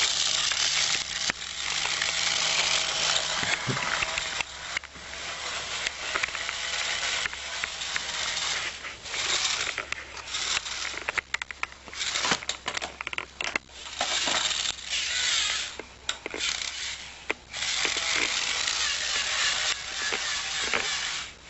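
Small parts of a toy car being worked on by hand: on-and-off clicking, ratcheting and scraping of plastic and metal bits.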